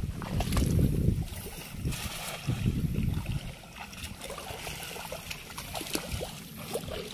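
Shallow river water sloshing and splashing around a wader's legs, loudest in the first second and again about two and a half to three and a half seconds in, then quieter trickling and small splashes.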